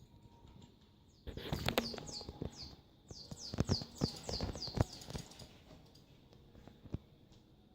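A cat chirping and chattering while playing: a quick run of short, high, falling chirps, about five a second, mixed with a few knocks and taps from the play.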